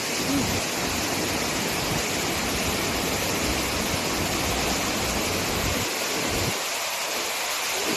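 Waterfall rushing with heavy force: a steady, loud roar of falling water.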